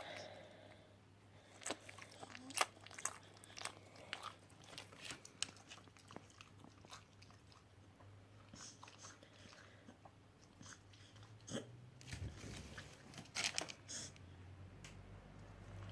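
Faint, scattered clicks and smacks of a dog's mouth, licking and chewing, with a sharper click about two and a half seconds in and a cluster of louder ones near the end.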